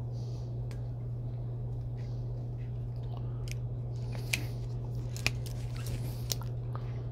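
Wire cutter-strippers snipping and stripping the insulation off the ends of 14-2 copper wire: a handful of short, sharp snips and crunches, mostly in the second half, over a steady low hum.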